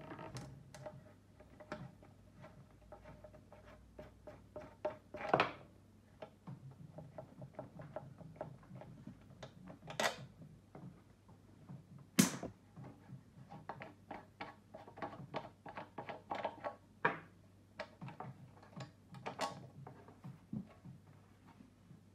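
Hands unscrewing the knurled terminal nuts on an old transformer welding machine and pulling off its welding cables: irregular small clicks, scrapes and knocks, a few of them louder, over a faint steady low hum.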